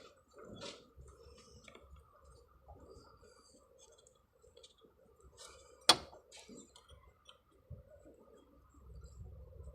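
Scattered light metallic clicks and ticks from hand tools and parts being handled, with one sharp clink about six seconds in, over a faint steady hum.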